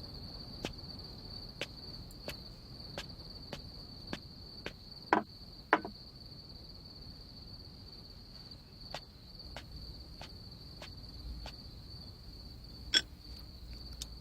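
Crickets chirping steadily as night ambience, with scattered soft clicks and two louder knocks about five and six seconds in.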